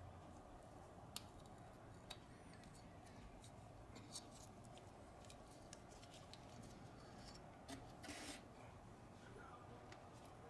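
Near silence, broken by a few faint small clicks and a brief scrape of a thin metal pick against the plastic body of a mass air flow sensor as its gasket is pried off.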